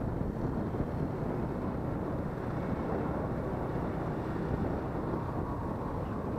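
Union Star 70cc motorcycle's small single-cylinder four-stroke engine running steadily while riding along the road, with a dense low rumble from wind and road on the microphone.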